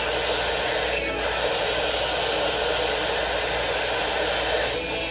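Steady radio static: an even hiss from a radio receiver with no voice on the channel.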